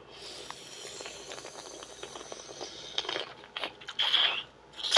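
Close-up eating and food-handling sounds from a seafood boil: a soft crinkling rustle with fine clicks for about three seconds, then a few separate crunches and smacks, and a sharp click at the end.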